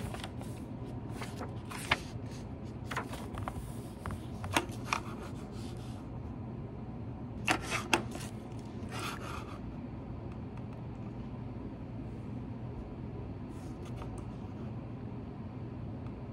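Paper pages of a bound notebook being turned and rustled: a handful of short crisp page sounds over the first ten seconds, then only a steady low room hum.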